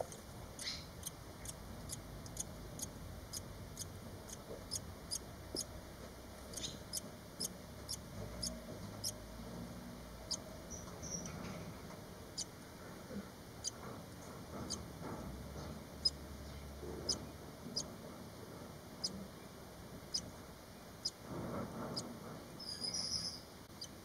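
Barn swallow nestlings, five days after hatching, peeping faintly in the nest with short high peeps. The peeps come about three a second at first, then more sparsely, with a brief cluster of louder calls near the end.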